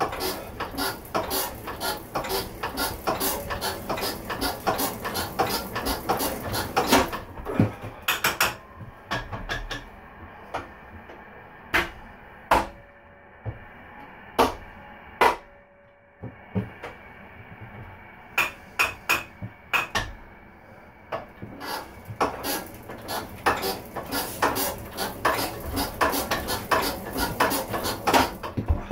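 Metallic clatter of a 1940s Lister JP4 four-cylinder diesel being hand-cranked through its chain-driven starting handle, without electric start. Rapid clicking for about eight seconds, then only occasional single clicks for about ten seconds, then rapid clicking again near the end; no steady running-engine note.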